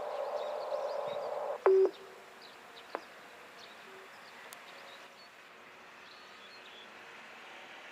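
Chime melody from an outdoor public-address loudspeaker of the disaster-prevention wireless system holds its last notes, then cuts off about a second and a half in with a short, loud clunk-like tone burst. After it comes a faint outdoor background with small high chirps and a single click.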